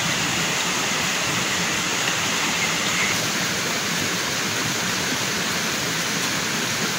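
Rushing river water, a steady even rush with no change.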